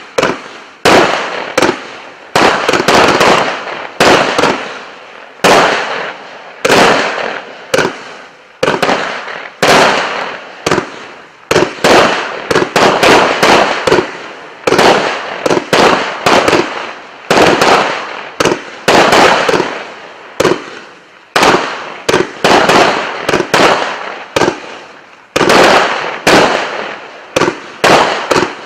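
Category 4 colour mine to pastel crossette firework firing shot after shot. It makes sharp bangs about one to two a second, each followed by smaller pops as the crossette stars split, then fading.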